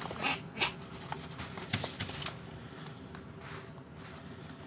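Chinchillas rolling and scrabbling in a dust bath: rustling dust with a few sharp knocks in the first two seconds.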